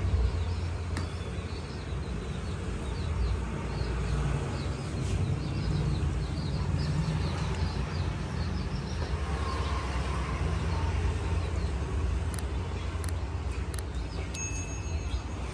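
Outdoor background: a steady low rumble with small birds chirping throughout, and a brief high electronic beep near the end.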